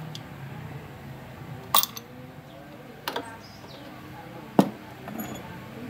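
Hand tools and bolts clinking against metal while a small motorbike engine is taken apart: four separate sharp metallic clinks, the loudest about four and a half seconds in.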